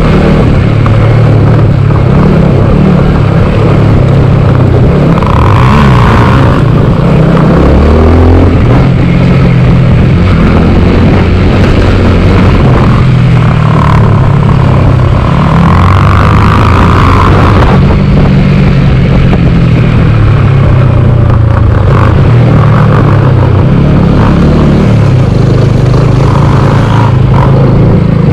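Motorcycle engine running close-up while riding on a dirt road, its pitch rising and falling with throttle and gear changes over a steady rumble of road and wind noise.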